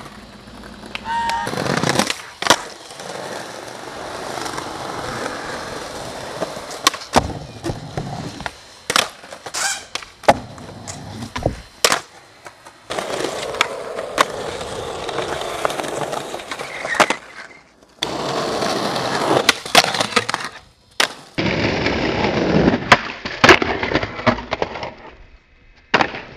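Skateboards rolling over concrete and asphalt, broken by many sharp clacks of boards popping and landing, and a board grinding along a low metal rail about halfway through.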